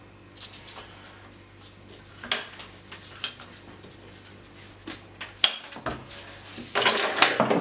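Metal clicks and clinks of a TIGR (civilian Dragunov) rifle's action being stripped: dust cover, recoil spring and bolt carrier handled and drawn out. A few separate sharp clicks, then a quick rattle of metal on metal near the end.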